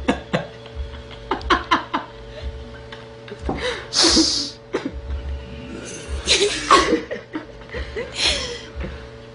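Laughter and breathy chuckles in short bouts, with a faint steady hum underneath.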